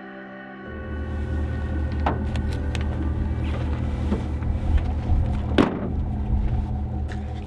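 A pickup truck idles with a steady low rumble, with a few light knocks at the truck bed. Its tailgate slams shut a little past halfway, the loudest sound.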